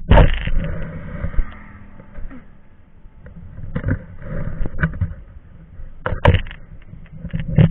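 Royal Enfield Bullet Electra 350 single-cylinder engine running under way, with wind buffeting the microphone in irregular loud gusts.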